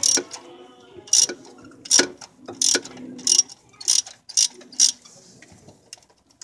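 Ratchet wrench clicking in short back-and-forth strokes, about eight of them, as a spark plug is turned with a socket on an extension; the strokes stop about five seconds in.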